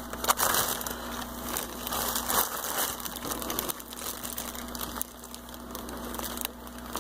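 A small plastic bag crinkling and rustling as it is handled, in irregular bursts, over a steady low hum.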